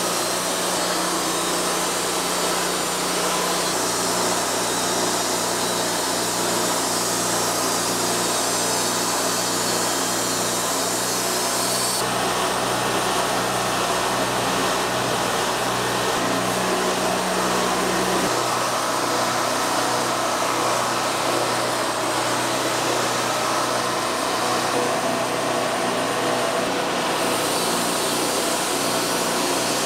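Wood-Mizer LT40 band sawmill running steadily, its band blade cutting through the log, a continuous machine noise whose tone shifts abruptly twice partway through.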